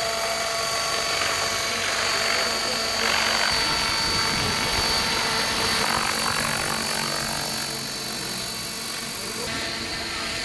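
Radio-controlled scale Hughes 500 model helicopter flying low: steady rotor and drive noise with a high whine.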